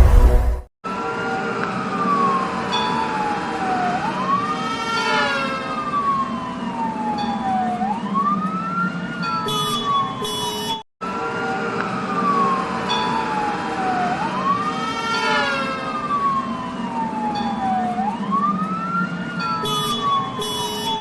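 Police car siren sound effect in a slow wail, rising quickly and falling slowly about every four seconds, over a low vehicle engine rumble. It cuts out for a moment about halfway through, then starts again.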